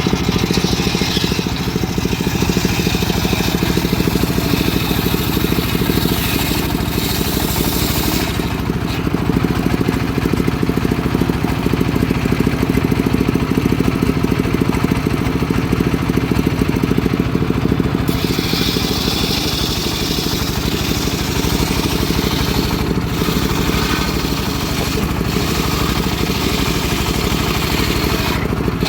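Engine of a homemade circular sawmill running steadily while the saw blade cuts teak, with a hissing whine from the cut for the first eight seconds or so and again from about eighteen seconds in until near the end.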